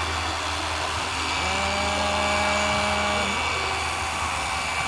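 Electric dual-action polisher running steadily against a car's painted panel, working in polishing compound. Its steady motor hum carries through, with a flat, steady tone over it for about two seconds in the middle.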